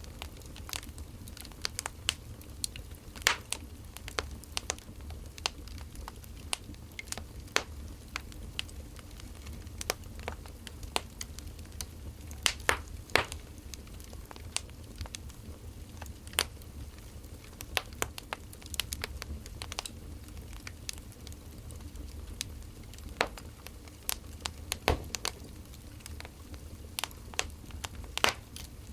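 Burning firewood crackling: irregular sharp pops and snaps, some much louder than others, over a low steady rumble.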